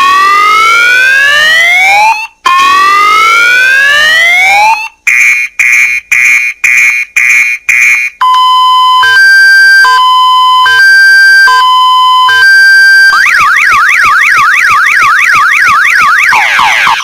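Loud electronic car alarm siren cycling through its tones: two rising whoops, then a run of quick beeps about two a second, then a slow two-tone hi-lo wail, then a fast warble.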